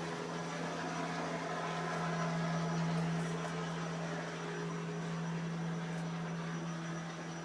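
Steady mechanical hum: one strong low tone with fainter overtones above it over a light hiss.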